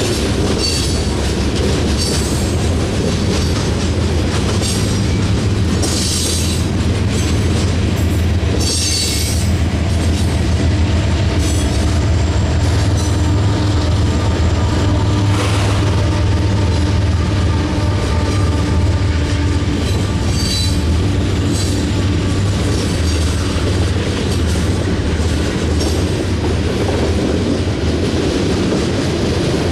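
Loaded coal train rolling past: steel wheels rumbling and clicking over the rail joints, with brief high wheel squeals now and then. About midway, two mid-train diesel-electric locomotives go by and add a steady engine drone over the rumble.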